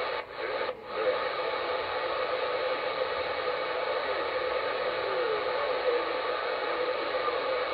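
Static hiss from a Uniden Bearcat 980SSB CB radio's speaker on channel 38, 27.385 MHz lower sideband: steady band noise while listening for skip, with two brief dropouts within the first second.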